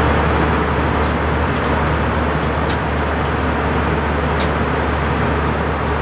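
Steady cabin noise of an Airbus A320 in flight: engine and airflow noise with a strong low drone.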